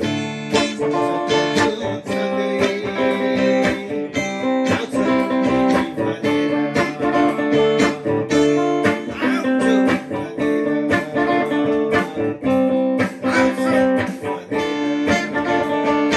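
Gretsch guitar played solo, a song picked and strummed in a steady stream of chords and single notes.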